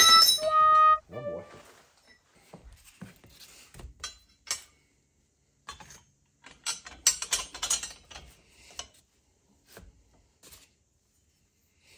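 Steel toolbar brackets and carriage bolts clinking and knocking as they are handled, with a ringing metallic clink at the start and a burst of clatter about seven seconds in, and scattered light knocks between.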